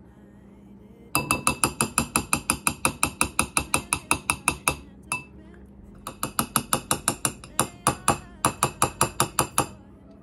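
Metal fork tapping rapidly against the rim of a glass bowl, about six sharp ringing clinks a second, in two long runs with a pause in the middle. The taps knock the excess melted chocolate off a dipped Oreo cookie.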